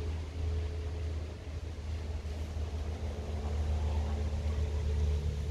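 Steady low rumble and hiss of outdoor background noise, with a faint steady hum.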